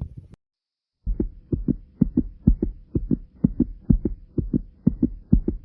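A fast, strong human heartbeat heard close up, racing after jumping jacks: rapid lub-dub double thumps, a little over two beats a second. The sound drops out completely for a moment just after the start, and the beats resume about a second in.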